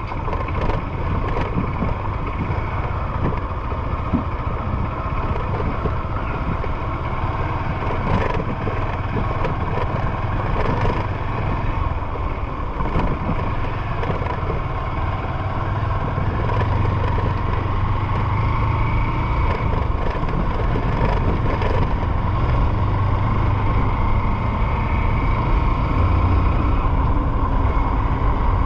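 Honda CG 150 Fan's single-cylinder four-stroke engine running steadily as the motorcycle rides a rough, dry dirt road, with road noise and occasional knocks from bumps. It gets a little louder in the second half.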